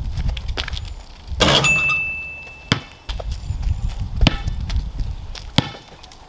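A basketball shot strikes the metal hoop with a clank and a brief ringing tone about one and a half seconds in, counted as a make. Then come single bounces of the ball on the concrete driveway, each more than a second apart, over a low wind rumble on the microphone.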